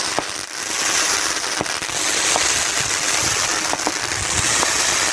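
Consumer fireworks going off: a loud, dense crackling hiss with scattered sharp pops throughout.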